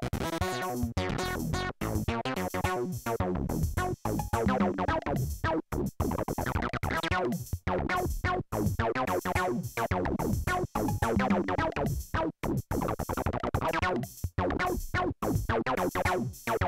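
A Polivoks analog synthesizer plays a fast run of short pitched notes while its panel knobs are turned, so the tone keeps shifting.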